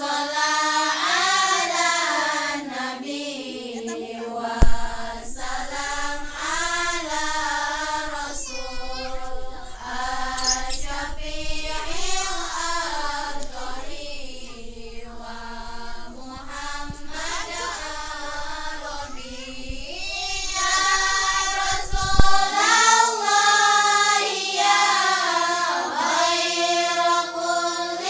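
A group of girls and young women chanting a melodic Islamic devotional song together in unison, unaccompanied. A low rumble runs underneath from about five seconds in until about twenty-two seconds in.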